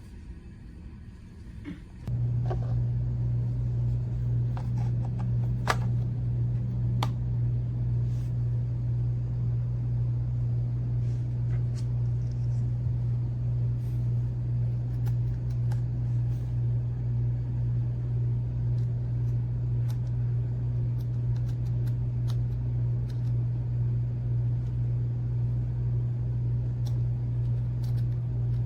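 A steady low electrical hum that comes on suddenly about two seconds in, with a few sharp clicks of handling in the first several seconds.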